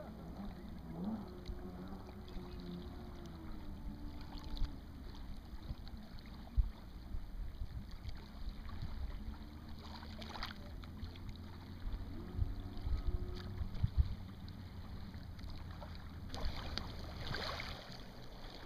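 Water lapping and gurgling against a small sailboat's hull under way, over a steady low rumble, with a few sharp knocks about a third of the way in and again around two-thirds through.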